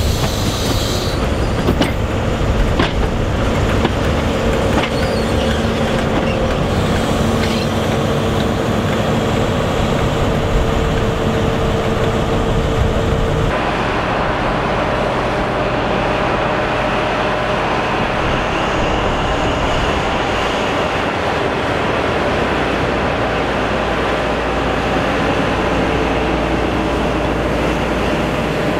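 HST train with Class 43 diesel power cars running slowly past on jointed track, engine drone with wheels and coaches rolling over the rails. About halfway through the sound changes suddenly to a power car passing close by, its diesel engine running.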